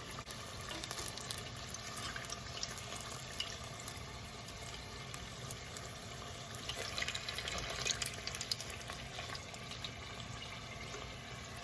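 Chicken wings deep-frying in hot grease: a steady sizzling hiss with scattered crackles.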